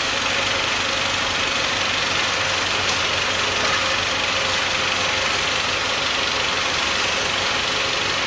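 Tractor engine running steadily, driving a Calderoni FPS55 under-vine rotary tiller through the PTO shaft, with the tiller's rotor head spinning freely in place. The running noise is even and unchanging.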